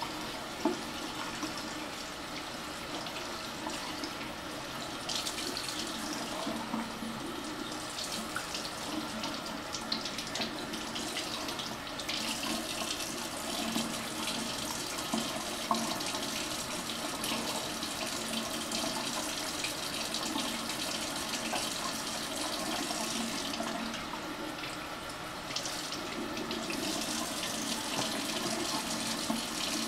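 Bathroom sink faucet running in a steady stream, the water pouring into the basin and splashing off cupped hands. The hiss brightens and dulls over time.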